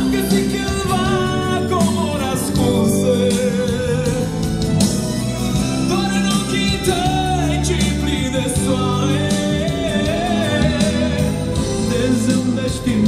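A song with a wavering sung melody over long held bass notes and instruments.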